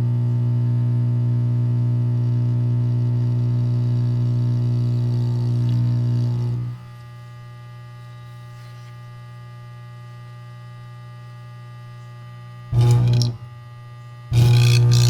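Electric arc between carbon electrodes, fed by a welder, buzzing with a loud steady hum. About seven seconds in the arc goes out and only a much quieter hum remains; it flares briefly near the end, then strikes again loudly with a crackling hiss.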